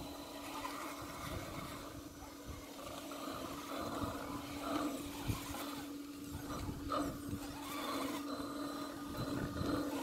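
Steady whine from the electric motor and geartrain of an Axial SCX10 II scale RC crawler as it creeps slowly up and over a rock, with irregular scrabbling and scraping from its tyres on rock and dirt.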